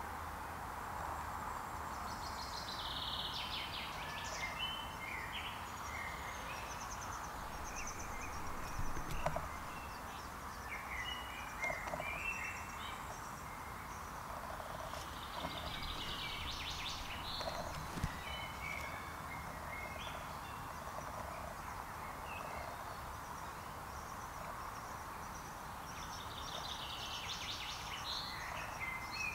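Woodland ambience: songbirds singing in several short bursts of high, trilled phrases over a steady background hiss, with a few faint ticks.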